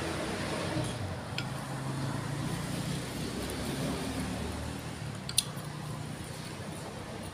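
Low, steady hum of a vehicle engine, under the sounds of noodle soup being eaten: noodles slurped and one sharp clink of a utensil against the bowl a little over five seconds in.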